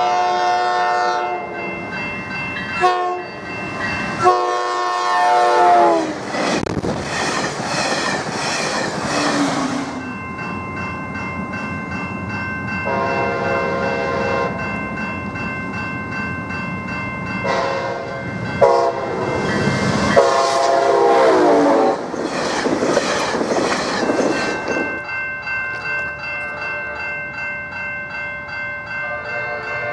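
Train horns blowing for a grade crossing in two series of long and short blasts, with the rush of a passing train after each series. Steady ringing of electronic crossing bells runs underneath.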